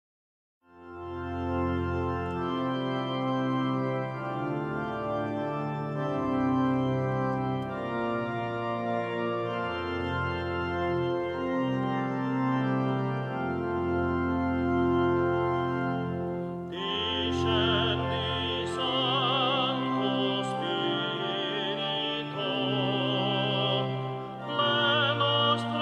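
Organ playing slow, held chords over a deep bass line as a hymn introduction. About two-thirds of the way through, a solo singer with strong vibrato comes in over it.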